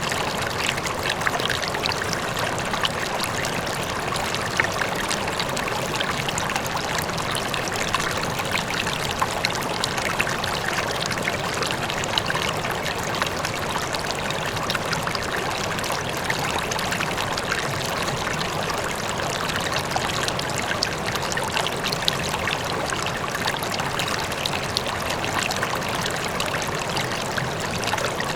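River water flowing steadily, a continuous rushing with many small splashes and trickles, with a faint distant waterfall blended in.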